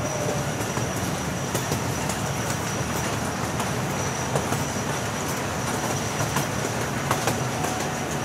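Amusement-park ride train running along its track, heard from aboard: a steady rumble of wheels with scattered clicks over the rail joints and a thin high whine over it.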